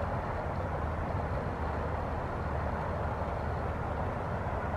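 Steady, even hum of traffic on a busy road.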